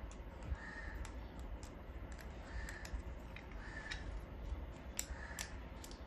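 Scattered sharp clicks and light knocks from a steel monitor-stand desk clamp and its screw knobs being handled. A bird calls in the background four times, short calls a second or two apart.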